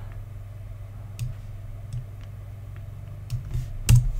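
A few scattered computer mouse clicks, the loudest near the end, over a steady low hum.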